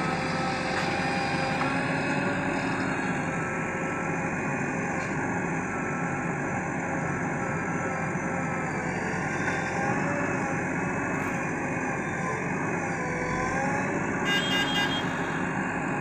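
JCB 3DX backhoe loader's diesel engine running steadily under working load, its pitch wavering slightly as the hydraulics are worked. A short run of high beeps sounds near the end.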